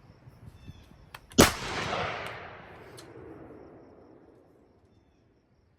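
A single gunshot on an outdoor range with a long rolling echo that dies away over about three seconds, preceded by a few faint clicks.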